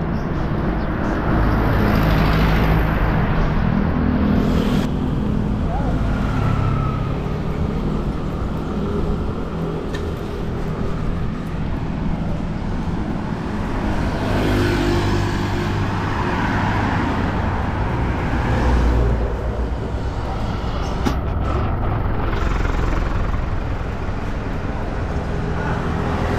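Wind rushing and buffeting over the microphone of a camera on a moving bicycle, with road traffic running alongside.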